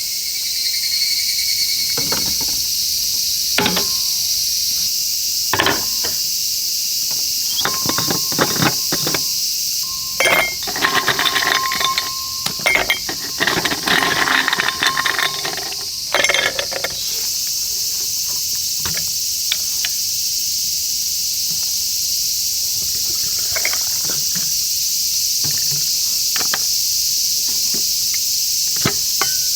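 Insects, crickets among them, chirping steadily in a high-pitched chorus. Several knocks and clattering sounds come through the middle, thickest about halfway through.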